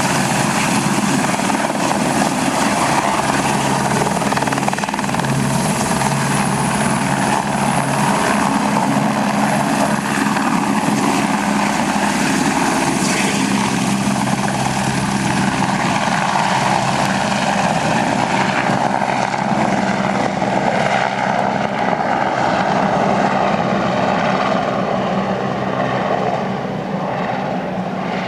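Flight For Life medical helicopter running at takeoff power: a steady rotor sound with a high, thin turbine whine. Over the last several seconds the whine fades and the sound gets softer as the helicopter flies away.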